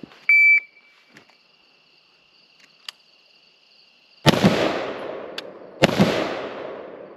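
A shot timer beeps once. About four seconds later two gunshots go off, a second and a half apart, each with a long echoing tail. Insects chirp steadily in the background.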